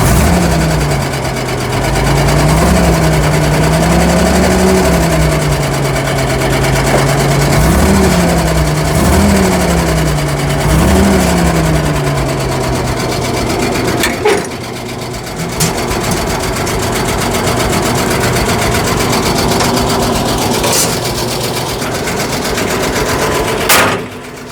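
M3A scout car's Hercules six-cylinder petrol engine running smoothly after a fresh valve job. The throttle is blipped about five times in the first twelve seconds, each a short rise and fall in pitch, then the engine settles into a steady idle.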